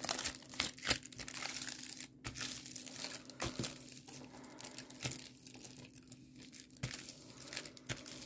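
Clear plastic packaging of diamond-painting sticker sheets crinkling and crackling irregularly as hands press and smooth the sheets flat, with a few sharper crackles.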